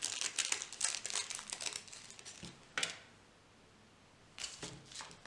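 A packet of fishing hooks crinkling and rustling in the hand as a hook is taken out: dense crackling for about two seconds, a single sharp tick, then a couple of short rustles near the end.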